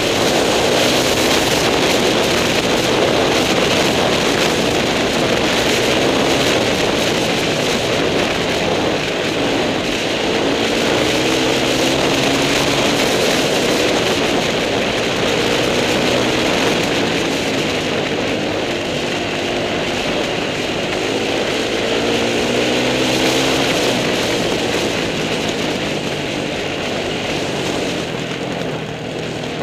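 Onboard sound of a trail motorcycle's engine running along a track, its note rising several times as it accelerates, under a steady rush of wind noise.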